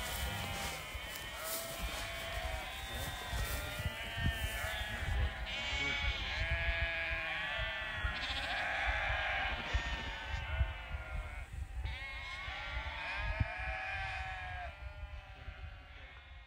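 A flock of sheep bleating, many calls overlapping one another, over a low wind rumble on the microphone. It fades out near the end.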